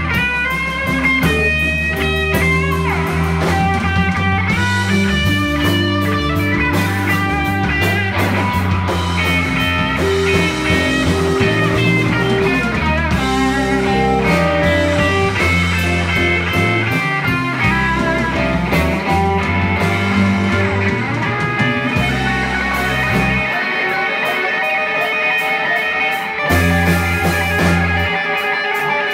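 Live band playing a slow blues instrumental passage: an electric guitar lead over bass and drums, with bent, gliding notes near the end.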